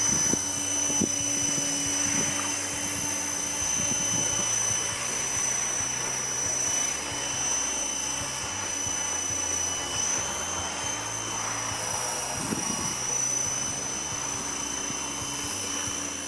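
Trim Corporation X-500 radio-controlled model helicopter hovering and flying low, its rotor and drive running at a steady speed with a constant high-pitched whine over the rush of the blades.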